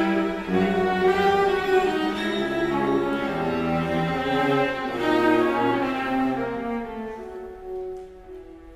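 String orchestra playing held, overlapping chords with low notes beneath. About six and a half seconds in, the sound dies away to a quiet sustained note.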